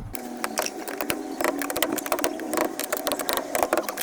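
Rapid, irregular clicking and rattling of hand tools working on the car during a fuel pump replacement.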